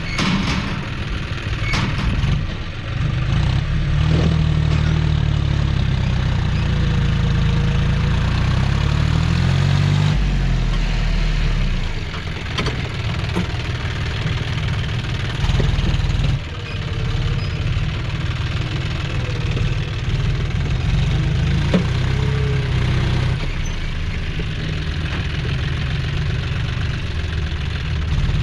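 John Deere 5050D tractor's three-cylinder diesel engine running under load while pulling a loaded trailer. Its pitch rises and falls several times as the engine works.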